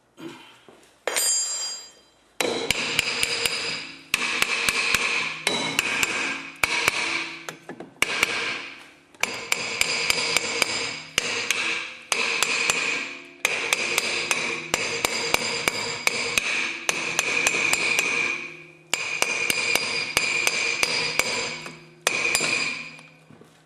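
A hammer striking the tight steel rear hub and hub puller again and again, in quick runs of blows with short pauses between them, the metal ringing after each blow.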